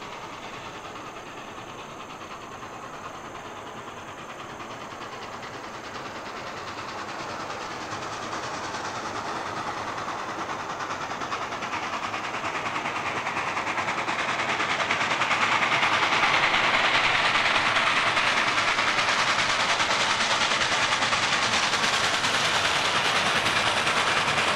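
Reading & Northern 2102, a 4-8-4 steam locomotive, working hard at speed as it approaches. Its exhaust grows steadily louder for about fifteen seconds, then holds loud as the engine draws near.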